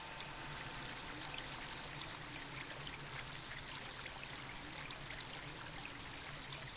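Soft trickling and lapping water, steady and quiet, with small irregular drips. A faint high whistle comes and goes.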